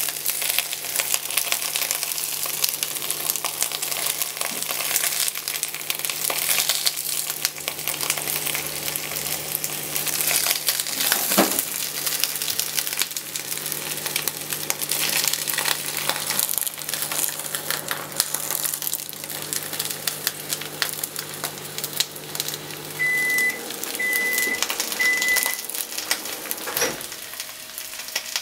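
Cabbage rolls sizzling as they brown in a frying pan, a steady crackle throughout, with a few knocks as they are turned by hand. Near the end a steady low hum stops and three short high beeps sound.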